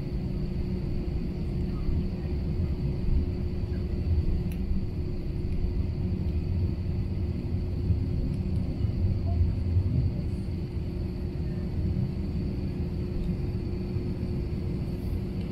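Cabin noise of an Airbus A321 taxiing: a steady low rumble from the engines running at taxi power and the wheels rolling on the taxiway, with a steady hum and a faint high whine over it.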